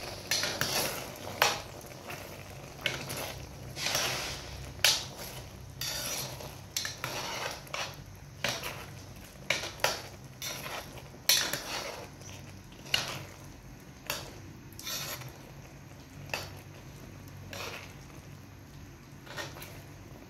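A spoon stirring a thick, creamy chicken and vegetable stew in a pot: irregular scraping strokes, with sharp clinks now and then as the spoon knocks against the pot.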